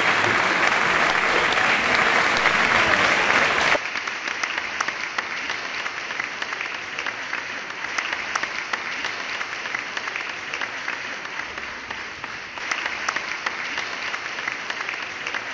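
Audience applauding. About four seconds in, the sound cuts abruptly to quieter applause with distinct individual claps, which carries on to the end.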